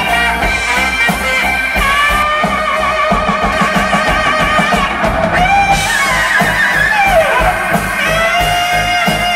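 Live rock band playing, with a saxophone solo of long held notes with vibrato over the band. One note slides down about seven seconds in.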